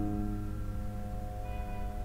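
Instrumental background music: a held chord of several notes that rings on steadily.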